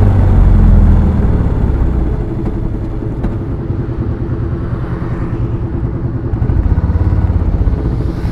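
Royal Enfield Classic 350 (BS6) single-cylinder engine and exhaust running at road speed. About a second in the note drops to a lumpier, quieter thumping as the throttle is eased, and it swells again with rising loudness over the last couple of seconds.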